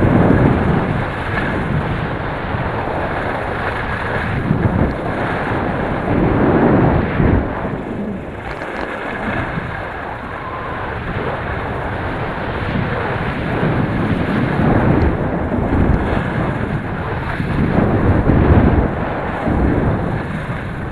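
Wind buffeting a helmet camera's microphone during a downhill ski run, surging and easing every few seconds, over the steady hiss of skis running on groomed snow.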